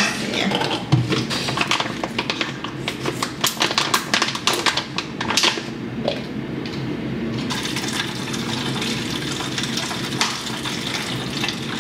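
Plastic cleaning-product bottles and a container being handled, with a run of clicks and knocks. From about halfway there is a steady sound of liquid running as Vanish stain remover is poured into the container.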